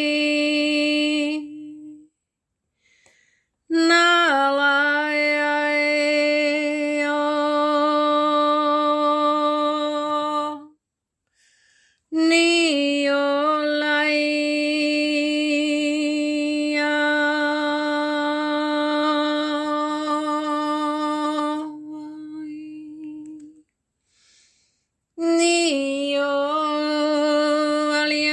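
A woman singing in a wordless chant, holding long notes of several seconds each on one steady pitch, each note sliding up into place as it starts. Three such notes are broken by short pauses of silence.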